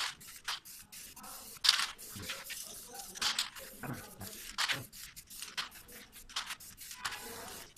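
Aerosol spray-paint can hissing in many short bursts, each a fraction of a second long, as paint is sprayed onto a wall.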